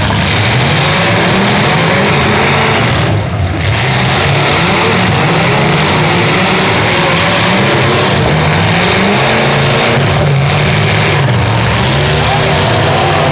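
Several car engines running and revving at once, their pitches rising and falling unevenly, from stock cars in an arena event such as a demolition derby.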